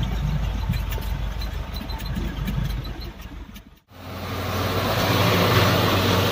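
Diesel dump truck engine running, heard from inside the cab, with small rattles and knocks. The sound drops out briefly just under four seconds in, then a louder, steady truck engine hum follows.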